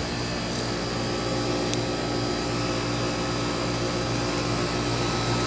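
A machine running steadily: a continuous drone holding several tones, with no change in pitch or level.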